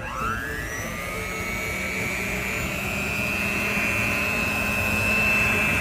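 Electric mixer switched on with a click, its motor whine rising quickly in pitch and then holding steady as it beats eggs into cake batter, growing slowly louder.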